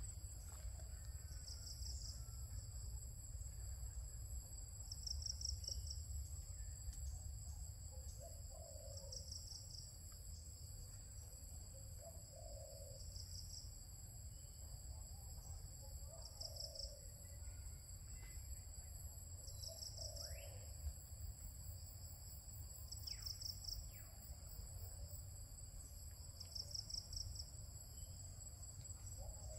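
Insect chorus in tropical palm forest: a steady high-pitched drone with a pulsing swell every three to four seconds. Faint low calls come now and then, over a low rumble.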